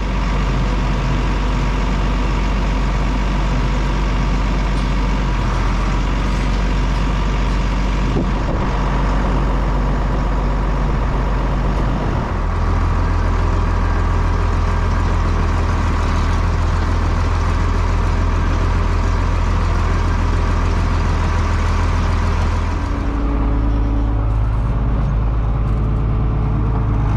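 Tractor engine running steadily under load, its note stepping up about twelve seconds in and shifting again near the end.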